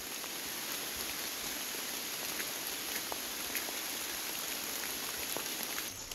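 Steady rain falling in a leafy forest: an even hiss, with a few single drops ticking close by now and then.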